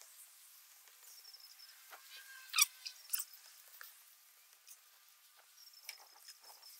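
Faint sticky crackling and small clicks of a paintbrush working thick Flex Seal liquid rubber onto a vinyl car top, with two sharper clicks about two and a half and three seconds in.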